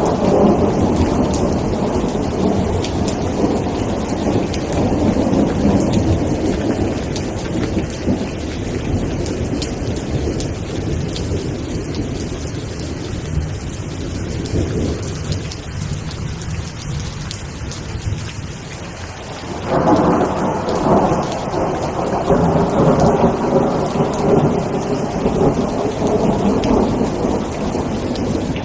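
Steady rain with rolling thunder. A long rumble fades away over the first two-thirds, and a new roll of thunder breaks in abruptly about two-thirds of the way through and carries on.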